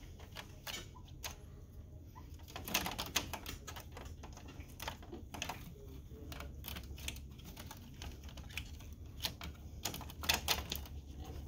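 Irregular light clicks and taps of plastic and wiring being handled inside an opened laser printer, as cables are pressed into their routing. The clicks come in bunches, about three seconds in and again near the end, over a faint steady low hum.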